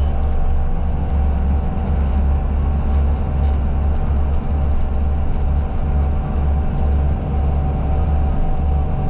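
Steady engine rumble heard from inside a moving bus, with a faint constant whine above it.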